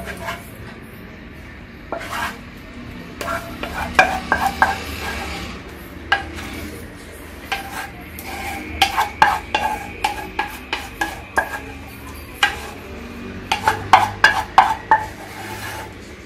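Wooden spatula scraping and knocking against the inside of a non-stick saucepan as thick chocolate cream is scraped out. There are irregular sharp taps throughout, with quick runs of them about nine seconds in and again near the end.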